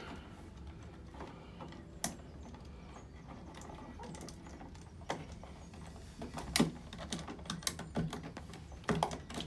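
Irregular clicks and knocks of a wired light switch and its wires being shoved back into a wall electrical box: one click about two seconds in, then a busier run of clicks in the second half.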